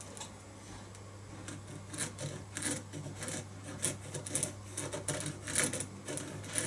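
Pencil scratching on a wooden bass neck blank as the headstock outline is drawn: an irregular run of short quick strokes starting about a second and a half in.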